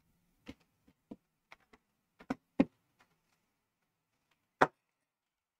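About eight sharp clicks or taps at irregular intervals, with the loudest two about two and a half and four and a half seconds in, and near silence between them.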